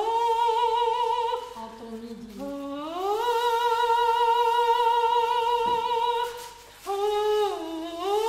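Soprano voice singing long sustained notes with vibrato: a dip to a low note, then a glide up into a high note held for about three seconds, followed by a short break and another rise near the end.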